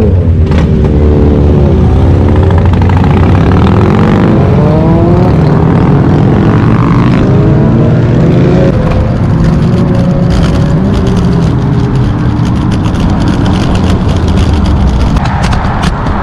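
Wind rushing over the microphone while riding, a loud continuous rumble, with a whine that glides up and down in pitch in the first half.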